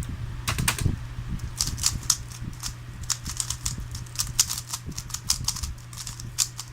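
3x3 Rubik's cube being turned by hand: a quick, irregular run of plastic clicks and clacks as its layers snap round.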